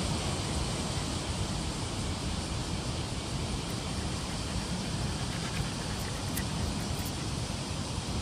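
Steady outdoor background noise: a low rumble under an even hiss, with a few faint light clicks about six to seven seconds in.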